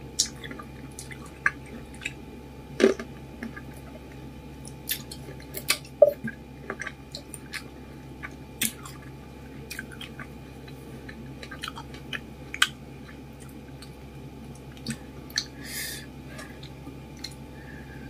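A person chewing green grapes close to the microphone: irregular short crunches and clicks of biting and chewing, with pauses between them.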